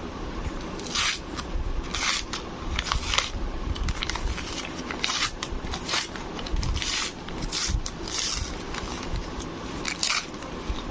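Product packaging being handled, with irregular short crinkling and scraping rustles about once a second.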